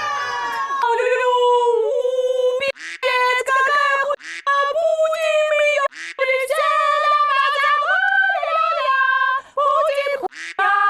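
A woman singing unaccompanied in a high voice, holding notes that step up and down in pitch, with short breaks between phrases.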